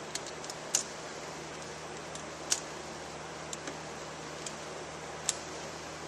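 Scattered sharp metallic clicks and ticks from a hand tool tightening the mounting bolts of a short-throw shifter, with three louder clicks at uneven intervals over a steady faint hiss.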